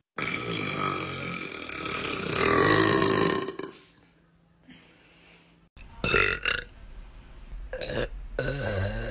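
A person belching: one long, drawn-out burp of about three and a half seconds, loudest near its end. After a brief quiet gap come two short bursts of sound.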